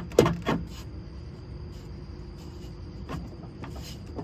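Parts of the old air intake being handled and knocked under the hood: a few sharp clacks in the first half second, then only faint ticks over a steady low background.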